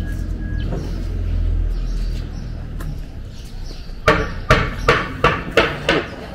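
Footsteps on hard ground at a walking pace, about two and a half steps a second, starting about four seconds in, after a low steady rumble.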